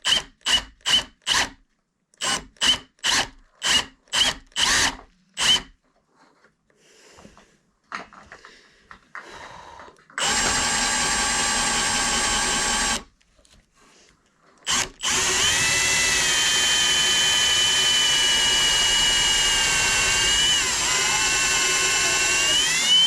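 Power drill with a sharp bit: first a quick string of short bursts, then a run of about three seconds, then a longer run of about eight seconds whose pitch sags about five seconds in and rises again near the end as the bit bites and frees.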